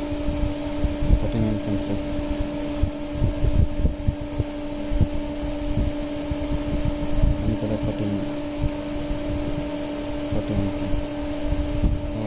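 Steady machine hum at two pitches, a lower and a higher tone, over an uneven low rumble on the microphone.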